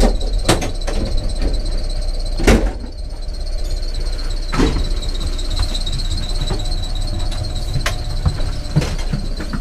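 Passenger train carriage running with a low rumble and a steady high-pitched squeal, typical of the brakes as the train slows into a station. A few sharp knocks come a couple of seconds apart.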